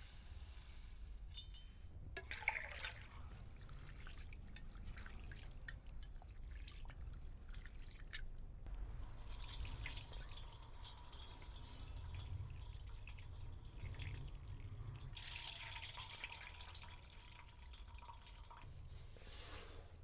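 Faint water sounds, dripping and pouring, with a few light knocks, as the mixed lentils for dal (toor, moong, urad, masoor and chana) are handled in water.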